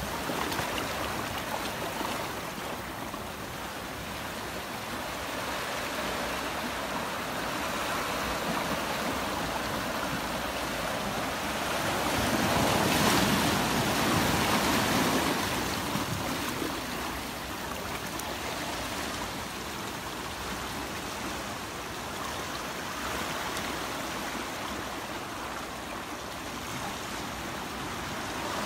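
Sea surf washing and churning among rocks and boulders: a steady rush of water that swells louder for a few seconds around the middle as a bigger surge comes in.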